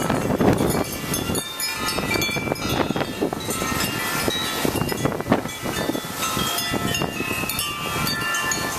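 Strong gusty wind rushing and buffeting the microphone, with many clear ringing tones at different pitches sounding on and off through it.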